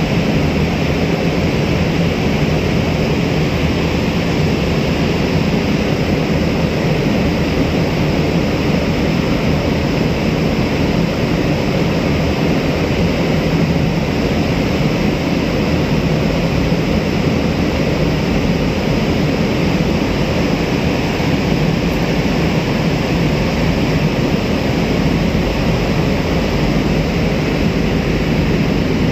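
Steady low engine rumble under a constant rushing wash of water and wind, from vessels under way on the river.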